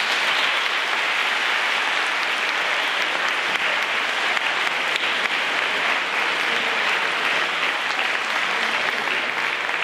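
Audience applause: a crowd breaking into clapping all at once and keeping up a dense, steady clapping.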